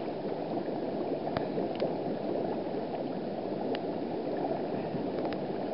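Water bubbling and churning steadily from the air jets of an outdoor thermal pool, close to the surface, with a few faint clicks.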